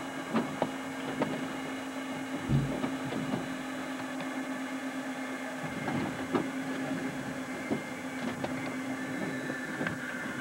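A steady low mechanical hum with a few light knocks and clatter.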